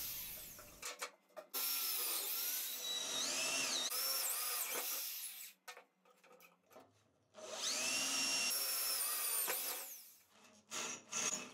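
Electric drill boring holes in the metal bar of a homemade clamp, in two long runs, its whine dipping and recovering as the bit cuts. A couple of short knocks near the end.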